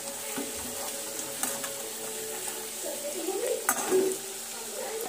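Puris deep-frying in hot refined oil in a kadhai: a steady sizzle, with a couple of sharp clicks about a second and a half in and again near the end.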